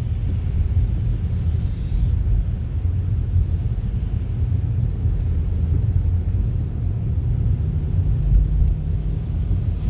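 Steady low rumble of a car driving: engine and road noise, heavy in the bass and even throughout.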